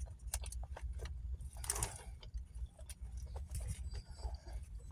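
Faint eating sounds: scattered small mouth clicks and chewing, with a brief rustle about two seconds in, over a low steady rumble from the car.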